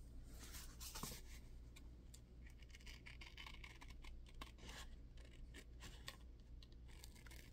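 Faint, irregular snips and paper rustling of scissors cutting a sheet of paper along a traced outline.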